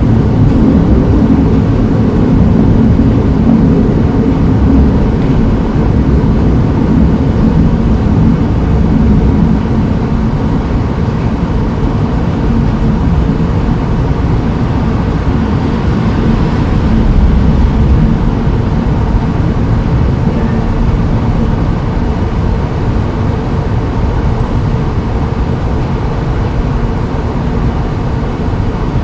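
Steady, loud low rumble of vehicle noise, with no distinct events.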